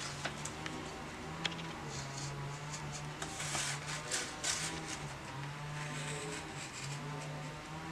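Snap-off-blade utility knife scraping through paper in short strokes while cutting out a shape, over a low steady hum that steps between two pitches.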